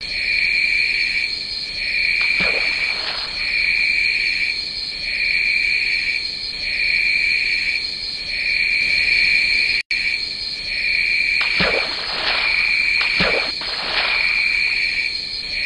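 Crickets chirping as an ambience sound effect: a continuous high trill with a lower chirping band pulsing on and off about once every second and a third. The sound drops out briefly near ten seconds in.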